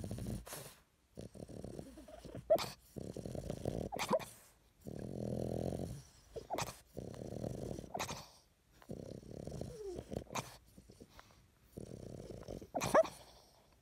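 French bulldog snoring in its sleep: a rough snore on each breath, roughly every one and a half seconds, with brief squeaks between some of the breaths.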